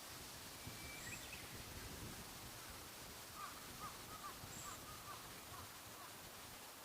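Faint wild bird calls over a steady outdoor hiss: a short whistled note about half a second in, a few thin high chirps, and a quick run of short notes in the middle.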